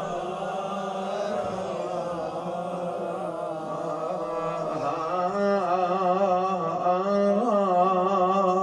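A man chanting an Arabic elegy for Fatima al-Zahra without accompaniment, drawing out one long wordless melismatic note. The voice is steady at first, then from about halfway through grows louder and wavers in a quivering ornament.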